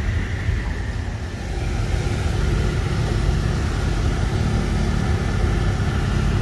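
Low, steady rumble of a pickup truck's engine idling.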